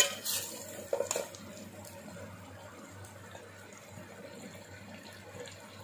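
Egg, onion and tomato mixture sizzling and bubbling in a steel pot, with a spoon scraping and knocking against the pot a few times in the first second and a half, then a steady low sizzle.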